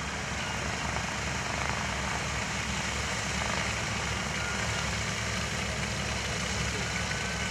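The four Curtiss-Wright R-3350 radial engines of a Lockheed Super Constellation run steadily at low taxiing power, with a fast, low pulsing throb from the propellers.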